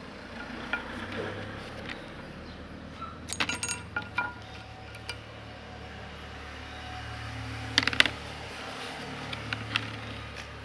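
Light metallic clicks and taps from a small screwdriver and the metal cover plate as the cover is unscrewed and lifted off a chainsaw carburetor. They come in two short clusters, about three and a half and eight seconds in, over a low steady hum.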